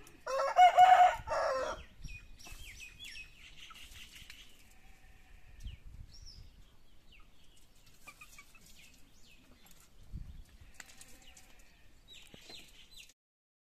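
A rooster crows once, loud, for about a second and a half at the start. Faint small-bird chirps follow, and the sound cuts off suddenly near the end.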